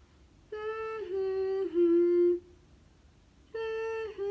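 A woman humming the sound word 'hum, hum, hum' as a short three-note phrase stepping down in pitch, twice, with a pause of about a second between the two.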